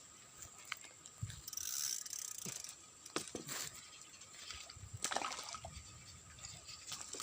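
Water splashing and sloshing, with a few sharp clicks and knocks in between.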